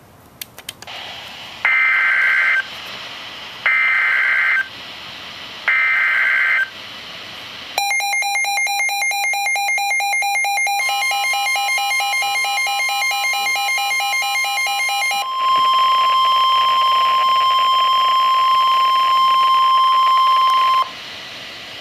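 NOAA Weather Radio emergency alert tones. Three one-second bursts of warbling SAME digital header data come first, then a harsh electronic alarm beeping. About halfway through, the long steady warning alarm tone begins and holds for about ten seconds before cutting off, signalling a warning such as this severe thunderstorm warning.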